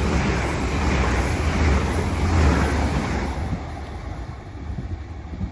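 Northern Ireland Railways Class 4000 diesel multiple unit running past the platform, a loud rumble with rail noise that dies away about three seconds in.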